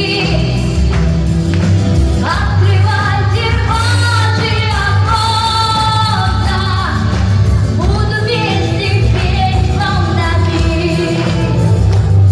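A girl's solo voice singing a pop ballad over a backing track with bass and a steady beat.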